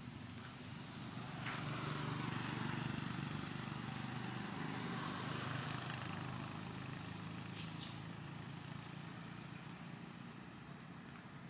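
A motor vehicle's engine running, growing louder about a second and a half in and then slowly fading away.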